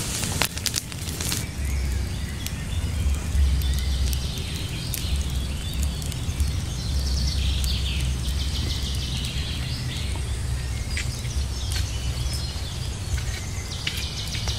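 Outdoor ambience: a steady low rumble, with birds chirping now and then and a few short clicks.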